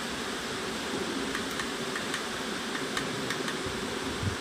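A steady hiss of background noise with a few faint, sharp clicks in the middle, typical of the front-panel channel buttons of a set-top box being pressed to step through channels.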